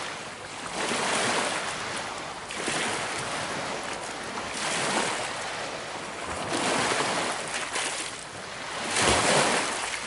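Small waves washing onto a rocky shore, a noisy wash that swells and fades about every two seconds, with the strongest surge near the end.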